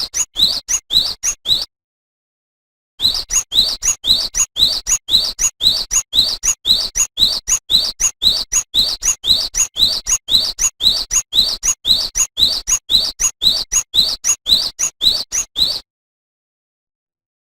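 Cinereous tit (gelatik batu) singing: a quick series of short, sharp rising notes, about three a second, in a brief phrase at the start and a long phrase that begins about three seconds in and stops about two seconds before the end. The gaps between the phrases are dead silence.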